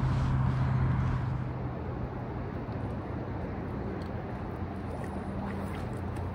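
Steady outdoor wind noise on the microphone with a low hum underneath, dropping a little about a second and a half in, with a few faint clicks later on.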